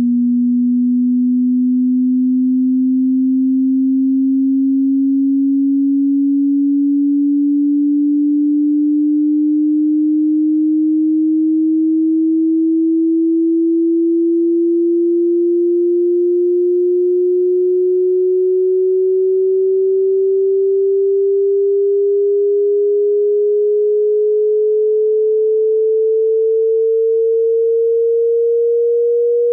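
Pure sine-wave test tone of a hearing test, sweeping slowly and smoothly upward in pitch by about an octave at a steady loudness.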